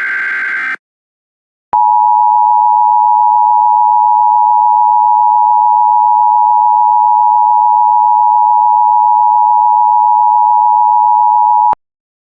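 Emergency Alert System tones: a short harsh burst of digital data tones, then about a second later the steady two-tone EAS attention signal, held for about ten seconds before it cuts off suddenly.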